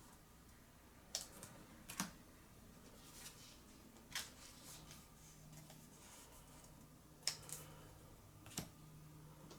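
Trading cards and plastic card sleeves being handled: five brief soft rustles and clicks spread through otherwise quiet room tone, with a faint steady hum from about halfway through.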